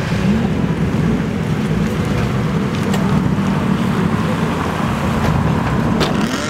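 Engine and exhaust of a lowered Toyota Celica XX running at low revs as it creeps slowly forward, a steady low drone. Near the end another car passes close by.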